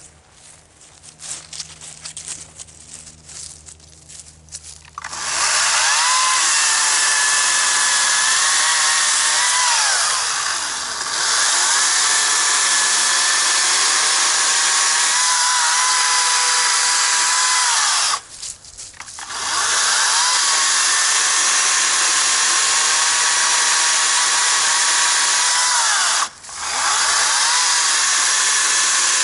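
Greenworks 60V brushless cordless chainsaw cutting through log rounds: a loud electric motor whine with chain noise, the pitch sagging and recovering several times. It starts about five seconds in after a few quieter clicks, stops for about a second two-thirds of the way through, and stops again briefly near the end.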